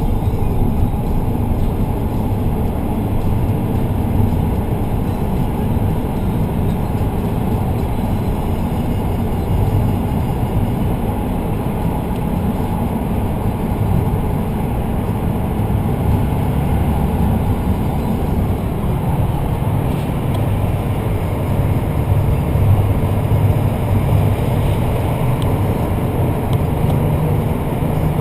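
Steady low rumble of a moving road vehicle heard from inside the cabin, even throughout with no revving or distinct events.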